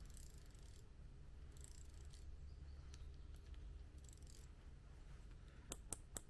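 Fly reel being handled: a few short, soft rasping hisses as the spool is turned against its drag, then three sharp clicks close together near the end as the drag knob is turned up notch by notch.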